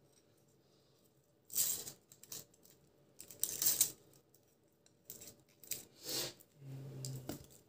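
Kitchen knife peeling the dry, papery skin off an onion: several short scraping, crackling strokes a second or so apart.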